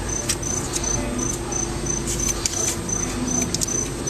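A cricket chirping steadily, a high even chirp about three times a second, over a low steady hum. Scattered small clicks and rustles come from hands pressing putty around a pump cable and rubber stopper.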